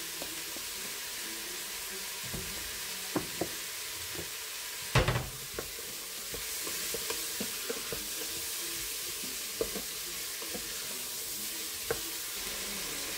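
Diced butternut squash, carrot, celery and onion sizzling in the stainless-steel inner pot of an Instant Pot on sauté, with a wooden spatula stirring and scraping them against the pot in scattered small clicks. A louder knock about five seconds in.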